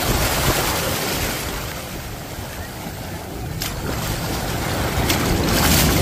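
Small sea waves washing and sloshing around in shallow surf, with wind rumbling on the microphone; it swells louder near the end.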